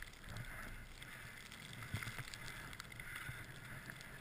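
Skis swishing and sliding through deep powder snow in soft, recurring hisses, with a low rumble underneath and a few faint knocks.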